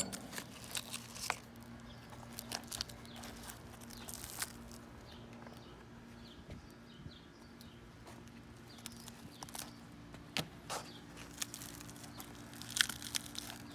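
Scattered clicks, taps and crackles as a bench vise is opened and a crushed Samsung Galaxy S7 is taken out and handled, over a steady low hum; a few sharper clicks come about ten seconds in and near the end.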